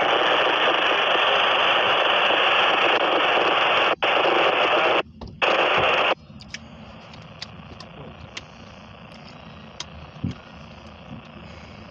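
Radio static: a loud, even hiss with a narrow, tinny range, broken by two brief dropouts. It cuts off abruptly about six seconds in, leaving a faint low rumble with a few light clicks.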